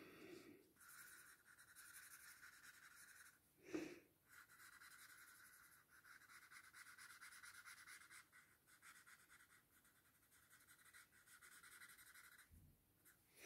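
Faint, steady scratchy rubbing of a drawing tool shading graphite on paper, broken by short pauses between strokes. A short louder sound comes about four seconds in.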